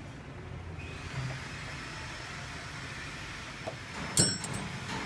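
Steady background noise, broken about four seconds in by a sharp metallic click as wires are worked off the terminals of a Ford starter relay.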